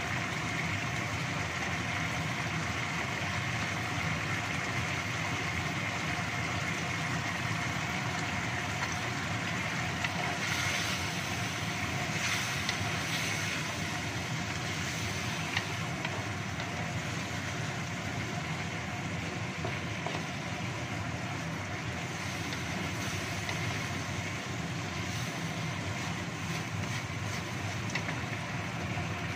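Chicken in sweet soy sauce simmering in a wok over a gas burner: a steady hiss and rumble, with a few light knocks of a wooden spatula against the pan around the middle.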